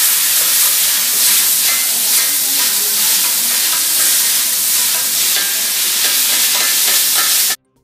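Yakisoba noodles, cabbage and shrimp sizzling loudly on a hot teppan griddle as two metal spatulas toss and turn them, the spatulas scraping and clicking against the plate. The sound cuts off suddenly near the end.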